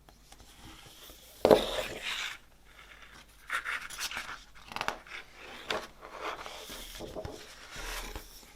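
Hands handling vinyl record packaging: irregular rustling and scraping of paper and card, with a sharp knock about one and a half seconds in.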